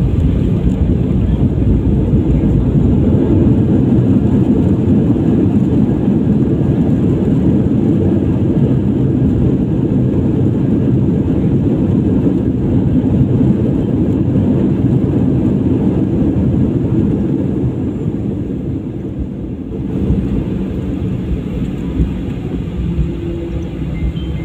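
Boeing 737-800 heard from inside the cabin during the landing: a loud, steady low roar of the CFM56 engines and runway rumble, which eases off about eighteen seconds in as the jet slows.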